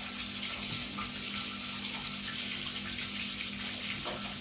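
Steady rush of running water with a low steady hum underneath: water running out of an Aqua washing machine whose drain valve leaks.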